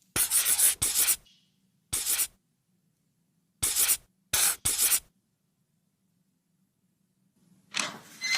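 About eight short rubbing noises in uneven groups, each a fraction of a second long, then a few seconds of near silence.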